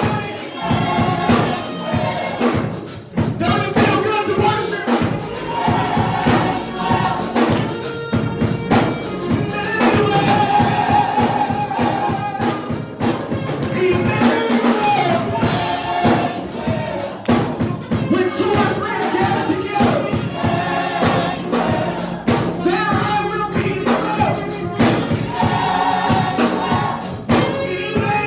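Live gospel music: a choir singing with the band, drums and tambourine keeping a steady beat.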